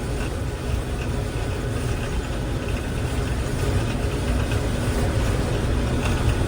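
Combine harvester running steadily while cutting wheat: a constant low engine and machinery drone with no breaks.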